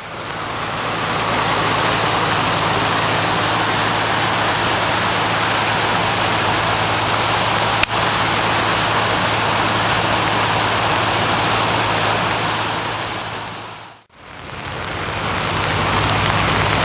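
Steady rushing of a rain-swollen creek running high, close to overflowing its banks. A single sharp click comes about eight seconds in, and the sound dips out briefly and returns about fourteen seconds in.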